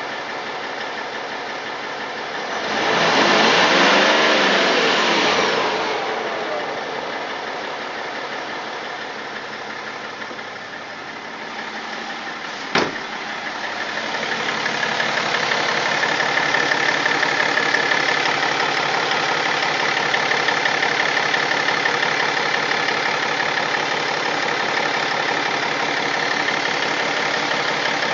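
BMW M57 straight-six diesel engine running with an extraneous noise whose cause the owner is trying to find. It is revved up and back down once about three seconds in. A single sharp click comes near the middle, and from about fourteen seconds it runs louder.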